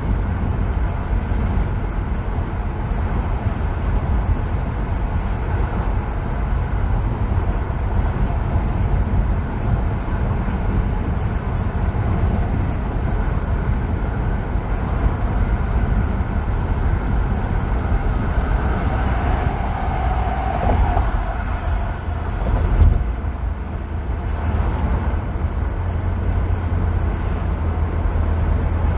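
Steady rumble of a car driving on a freeway: road and engine noise, heaviest in the low end. About two-thirds of the way through, a brief whine rises out of it, followed shortly by a single thump.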